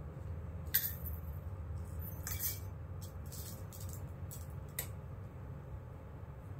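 Dry pu-erh tea leaves crackling as fingers break off and crumble small pieces, in several short crisp bursts over a steady low hum.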